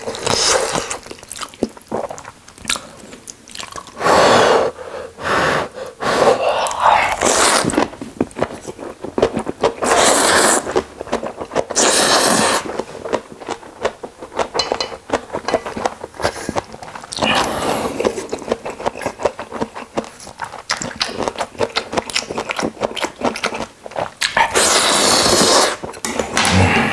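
A person eating instant ramyun noodles close to the microphone: wet chewing with many small clicks, and loud noisy slurps of about a second each, five or so times.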